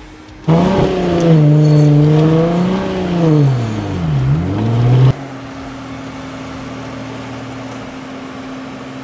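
Jeep Wrangler's engine revving hard under load as it climbs a muddy, rutted track, its pitch rising and falling with the throttle. About five seconds in it cuts off abruptly to a steady, quieter hum.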